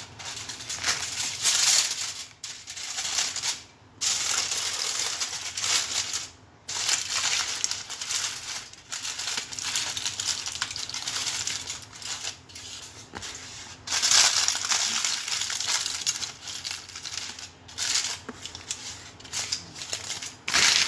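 Crinkly rustling and rubbing as raw pork skin is wiped dry by hand, in uneven strokes with a few short pauses.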